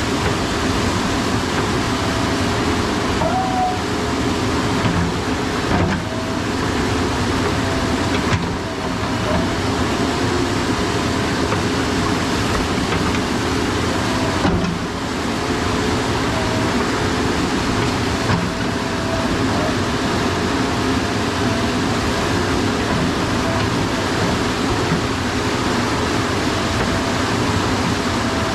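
JCB backhoe loader's diesel engine running steadily, with a steady whine over it and a few brief dips in level.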